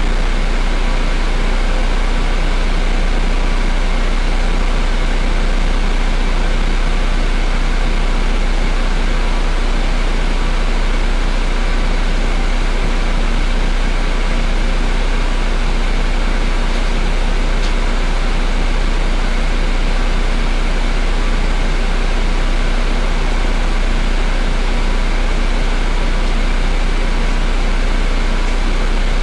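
Rear-mounted Volvo DH12E turbocharged six-cylinder diesel of a Volvo B12BLEA bus idling, heard from inside the passenger cabin as a steady, unchanging drone.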